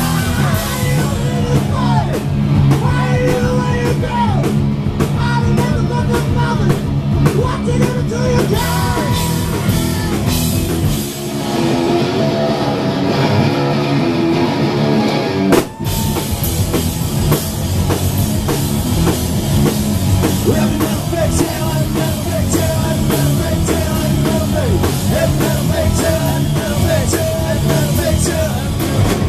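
A two-piece rock band playing live: loud distorted electric guitar and drum kit, with singing in the first part. About 11 seconds in, the bottom end drops away for a few seconds, leaving mostly guitar. A sharp hit brings the full band back in about 16 seconds in.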